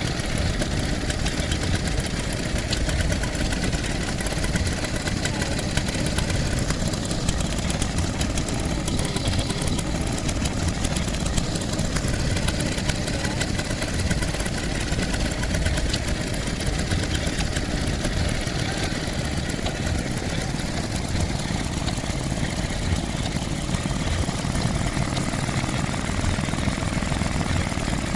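Vintage petrol engine idling steadily, with an even, rapid firing beat that holds unchanged.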